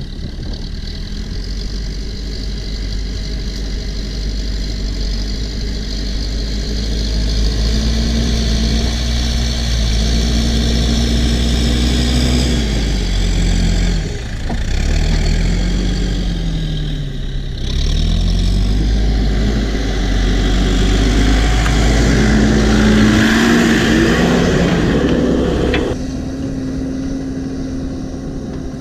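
New Holland B95 backhoe loader's diesel engine running as the machine works, its pitch climbing, dipping and rising again several times as the engine revs up and down. Near the end the sound drops abruptly to a steadier, quieter engine note.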